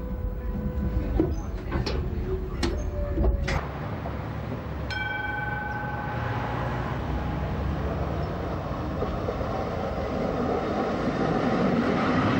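Electric tram running on light-rail track: a low rumble with clicks and knocks from the wheels on the rails, then a short ringing tone about five seconds in, and a rushing noise that grows louder toward the end as a tram draws near.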